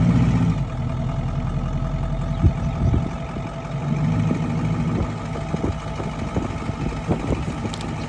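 An engine running steadily at idle, a low even hum, with a few short knocks, the loudest about two and a half seconds in.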